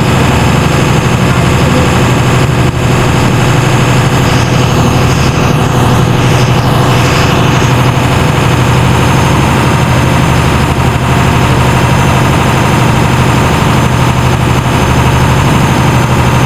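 Engine of a small fishing-boat-type charter boat, heard aboard, running loud and steady with a constant low hum over a continuous hiss.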